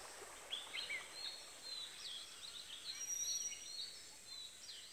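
Faint birdsong ambience: many short chirps and whistles from several birds over a light background hiss, busiest through the middle.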